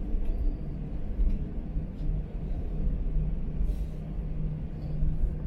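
Cabin noise of an Airbus A321 on the ground before takeoff: a steady low hum from the engines and air systems over a low rumble, with small uneven swells in loudness.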